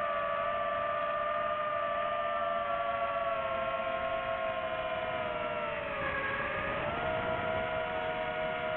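DJI FPV drone's motors and propellers whining steadily in flight, several tones at once. The pitch dips about six seconds in as the motors slow, then climbs back.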